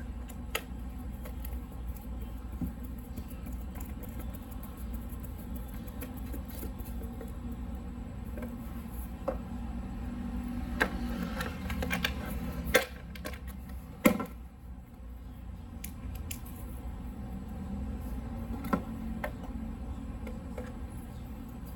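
Hand screwdriver turning screws into a plastic motorcycle side cover, with scattered light clicks and knocks as the tool and panel are handled; two sharper knocks about 13 and 14 seconds in are the loudest. A steady low hum runs underneath.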